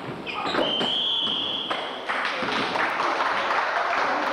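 A referee's whistle blown once in a single held blast of about a second, then spectators clapping and applauding.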